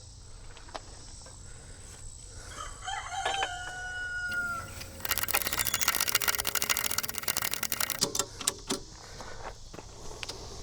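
A rooster crows once, a long call about three seconds in. It is followed by about three seconds of rapid clattering clicks, the loudest sound, and a few knocks.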